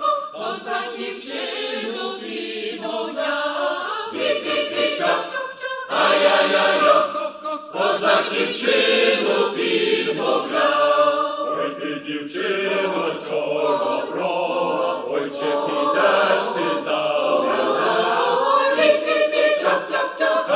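Mixed choir of men's and women's voices singing a Ukrainian song in harmony, in sung phrases with brief breaks between them.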